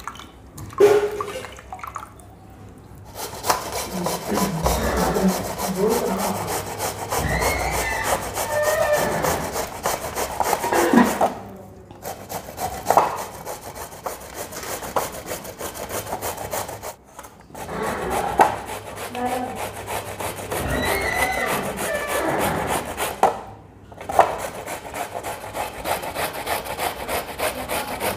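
Bottle gourd being grated on a metal box grater: a run of rasping strokes that starts about three seconds in and stops briefly three times.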